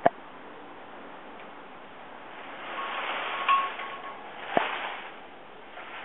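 Plastic bottles and metal kitchenware being shaken and knocked together. There is a sharp clink at the start, then rustling with a brief ringing tone around the middle, and a ringing knock about four and a half seconds in.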